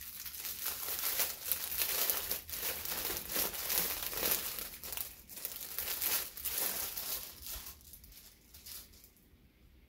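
Clear plastic packaging bag crinkling and rustling as it is handled, opened and a shirt is pulled out of it; the crinkling dies away near the end.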